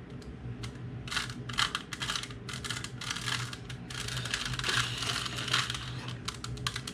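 Plastic Rubik's Cube being twisted by hand, its layers clicking and rattling in quick bursts of turns as a move sequence is worked through.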